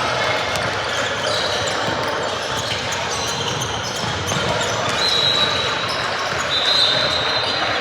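Basketball game in a gym: a ball bouncing on the court amid steady crowd and player chatter, with a couple of short high squeaks, like sneakers on the floor, in the second half.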